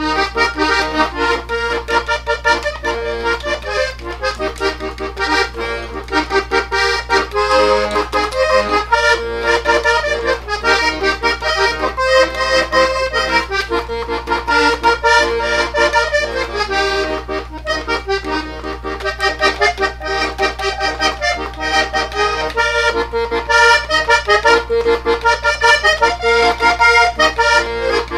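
Hohner diatonic button accordion playing a vallenato paseo melody solo, with no singing; the notes change quickly over a steady low bass tone.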